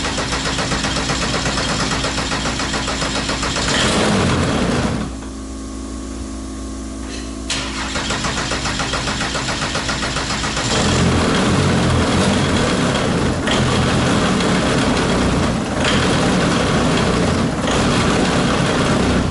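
Diesel aircraft engine cranking on the starter, then firing and running roughly, its idle hunting up and down. The builders suspect a sensor not connected correctly or air in the diesel lines.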